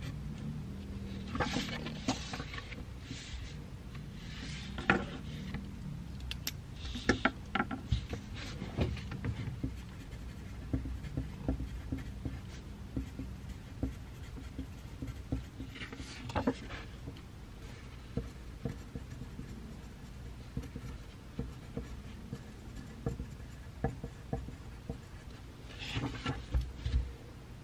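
Pencil writing on paper in a small room: soft scratching strokes and small taps, with a few louder scratchy bursts about 2, 7, 16 and 26 seconds in, over a low steady hum.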